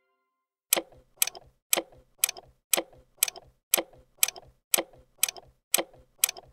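Ticking-clock sound effect, about twelve crisp ticks at two a second starting just under a second in, counting down to the next quiz question.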